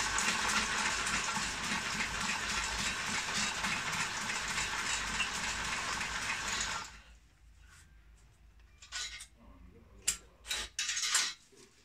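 Dry broomcorn straw rustling and crackling as the bristles are pressed and stitched together. It is a dense, steady crackle for about seven seconds, then stops fairly suddenly, followed by a few short rustles near the end.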